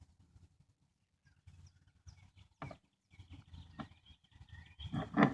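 Faint scattered clicks and light scraping of the engine-oil dipstick being pulled and handled under the hood, engine off.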